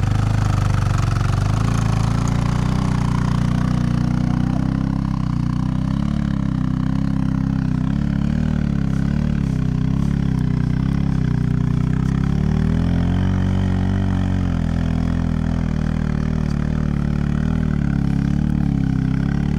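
Big single-cylinder dual-sport motorcycle engine running at low revs, its pitch wavering gently up and down with the throttle.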